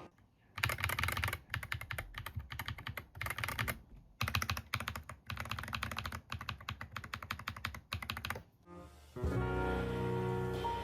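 Typing on a mechanical keyboard: rapid bursts of key clicks with short pauses, for about eight seconds. Background music comes back in near the end.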